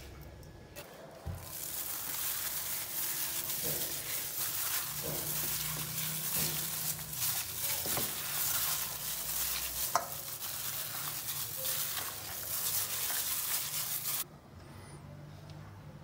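A gloved hand kneading raw chicken pieces with flour and spices in a stainless-steel bowl: wet squishing and rustling of the plastic glove. It starts about a second in and stops abruptly near the end.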